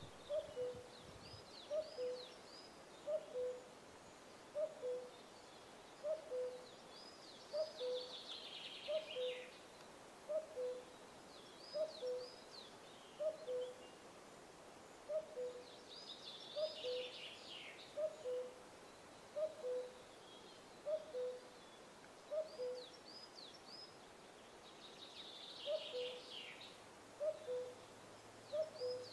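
Western capercaillie cock singing its display song three times, each phrase a run of clicks building into a hissing, scraping flourish. Another bird gives a two-note hooting call, a higher note then a lower one, repeated steadily underneath.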